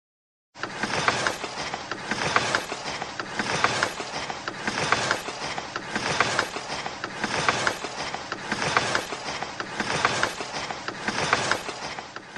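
Railway wheels rolling along track with a clicking clickety-clack that swells about once a second, starting just after half a second in.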